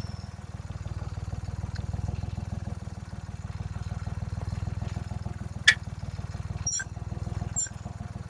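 Tractor diesel engine running steadily with an even, rapid beat. About two-thirds of the way through there is one sharp click, followed by two short high chirps near the end.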